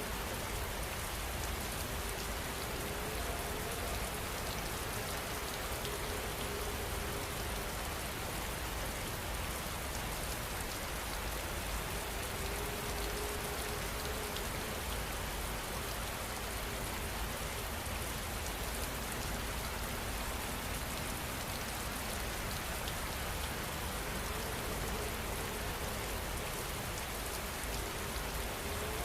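Heavy rain falling steadily and evenly, with no let-up or change in strength.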